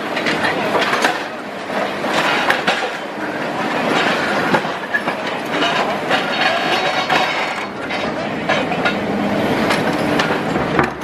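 Rotar hydraulic pulveriser on an excavator crushing a reinforced concrete deck: a continuous grinding clatter of concrete cracking and rubble falling, with many sharp cracks throughout.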